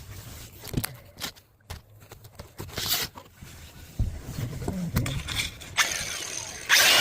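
Chisel scraping and chipping at old fiberglass on a boat transom: irregular scrapes and knocks. Electronic music starts just before the end.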